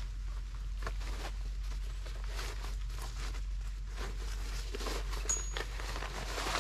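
Irregular patter of raindrops on tent fabric, over a steady low hum.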